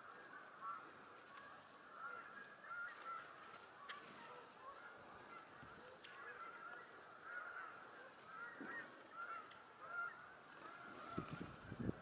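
Faint, continuous chorus of many birds calling at once, their short calls overlapping without a break, with a few soft clicks; a low rumble comes in near the end.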